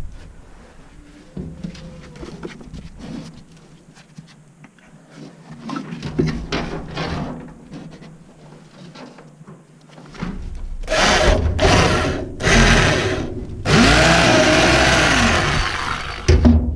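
Quiet clicks and handling knocks, then, about ten seconds in, a power tool run in several short loud bursts. In the last and longest burst its motor pitch rises and then falls.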